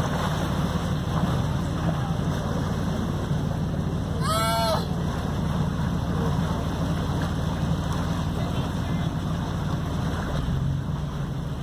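Steady low rumble of the tall ship Lady Washington's engine with its propeller churning the water as it manoeuvres slowly. About four seconds in comes a brief, high, warbling squeal.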